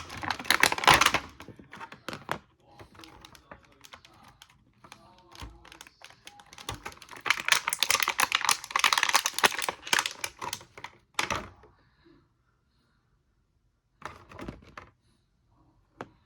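Handling of a plastic action figure and its packaging: rapid crackling clicks in two spells, then quiet with two brief bursts of clicks near the end.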